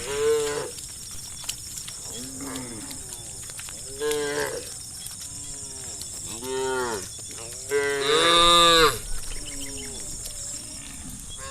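Cattle mooing: about seven separate calls, each rising and falling in pitch. The loudest and longest comes about eight seconds in and lasts about a second.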